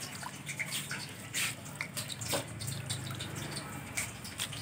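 Water splashing and dripping in irregular small splashes and drips, over a faint steady low hum.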